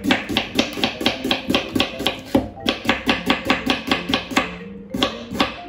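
Chef's knife slicing an onion on a wooden board: quick, even knife strikes against the wood, about five a second, with a short pause near the end.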